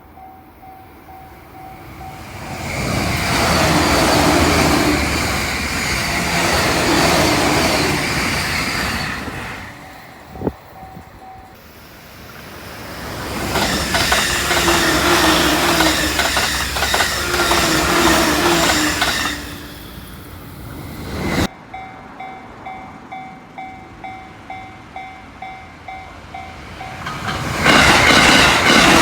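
Electric trains passing a level crossing at over 120 km/h in quick succession: two loud rushing passes of several seconds each, with the clatter of wheels over rail joints, and a third train arriving near the end. Between passes the crossing's bell rings in a steady rapid ding-ding.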